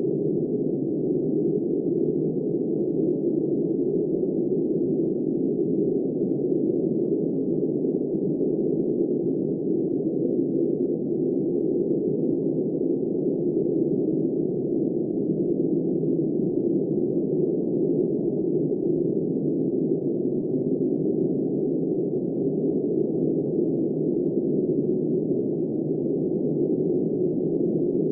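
Steady, muffled blizzard wind: a deep, even rush with no high hiss and no gusts or breaks.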